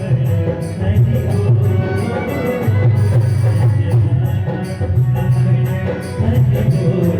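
Bhajan music with a steady rhythm: repeated jingling percussion over pulsing low drum notes.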